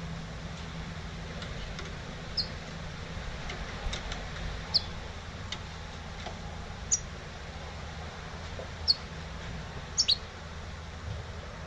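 Caged goldfinch × canary hybrid (mixto jilguero) giving short, sharp, high chirps, single notes every second or two, with a quick double chirp near the end, over a steady low hum.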